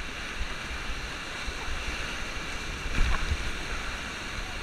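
Whitewater rapids rushing and crashing around an inflatable raft as it runs through big standing waves, with low buffeting on the camera microphone. A sudden louder hit comes about three seconds in.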